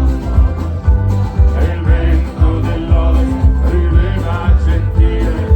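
Folk-rock band playing a song with a steady beat, about two beats a second.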